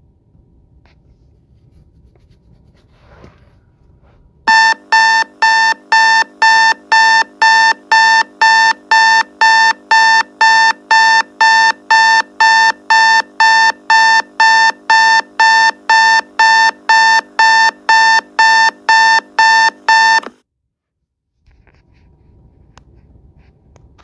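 Faint idle of the Nissan Versa's engine heard from the cabin, then a loud electronic warning chime starting suddenly and repeating evenly about twice a second for some sixteen seconds before it cuts off.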